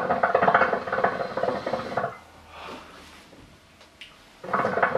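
Shisha water bubbling in the hookah's base as smoke is drawn through the hose, a rapid gurgle lasting about two seconds. After a quieter pause, a second draw starts the bubbling again near the end.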